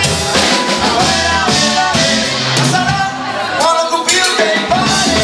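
Live salsa band playing: singing over horns, congas, drum kit and bass guitar, with a steady bass line underneath.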